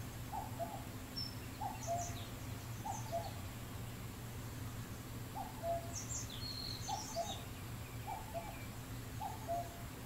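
An owl calling: a short two-note hoot repeated about every second and a quarter, over a steady low hum, with a few faint high chirps in between.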